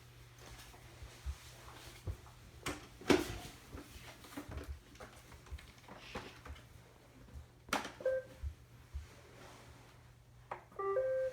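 Quiet indoor handling of a Roomba robot vacuum: scattered light knocks and taps over a faint steady hum, a short electronic beep about eight seconds in, and a quick run of electronic tones near the end, typical of the Roomba's button beeps and start-up tune.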